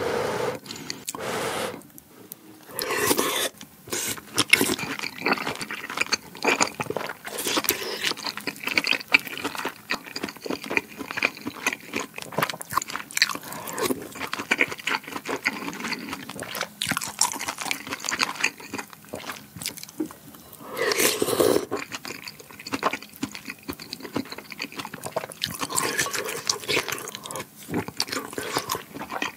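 Close-miked wet chewing of spoonfuls of rice, pork belly and kimchi, with slurps of kimchi stew broth. The sound is a dense run of irregular smacks and clicks, with louder stretches about three seconds in, around twenty seconds in and near the end.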